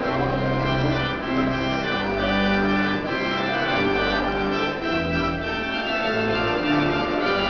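Organ playing a wedding recessional: sustained chords over held bass notes that change every second or so.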